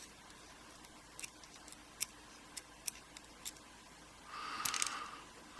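Small sharp metallic clicks, about seven spread out, then a quick cluster of brighter, slightly ringing clicks near the end: tiny pins and springs being picked out of a dimple lock cylinder.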